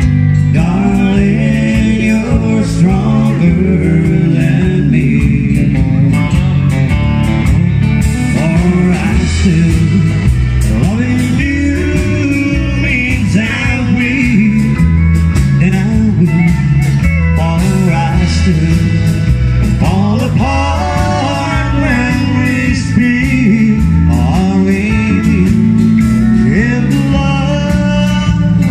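Live band playing country-blues rock: electric guitar and pedal steel guitar with sliding, bending lead lines over electric bass and drums.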